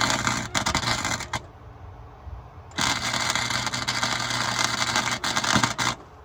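Electric arc welder crackling as a stripped nut is welded onto a socket. The arc breaks off about a second and a half in, strikes again over a second later, and stops just before the end.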